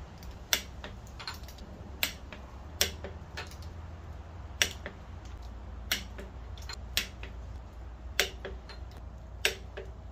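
Click-type torque wrench clicking as it tightens cylinder head bolts to the first-stage 55 foot-pounds: sharp single clicks about once a second, eight or so in all, over a steady low hum.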